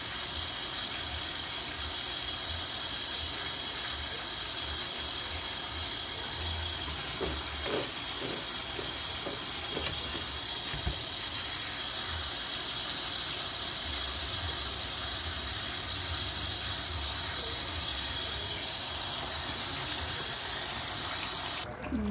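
Kitchen faucet running steadily, its stream splashing over squash pieces in a plastic colander as they are rubbed clean by hand, with a few soft knocks of the pieces shifting. The running water stops abruptly near the end.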